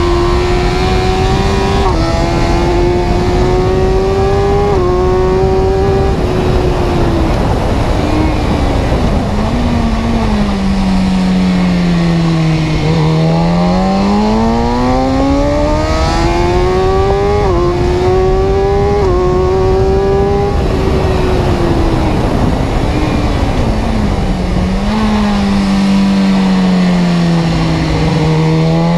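Car engine under way, its note climbing as it accelerates and dropping sharply at each gear change, about 2 and 5 seconds in and again around 17 and 19 seconds. Twice it sinks low as the car slows, with steady road noise underneath.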